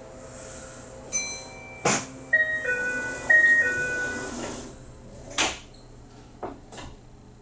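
A short electronic chime tune of several stepped notes plays at a Kintetsu limited express door closing. Sharp knocks come before it, and a louder clunk and two small knocks follow, consistent with the train's doors shutting.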